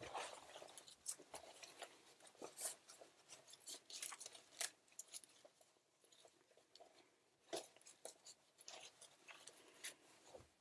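Faint, irregular rustling and crinkling of a gas mask hood and uniform fabric, with small clicks and scrapes, as the hood is pulled into place and worked around the neck by hand.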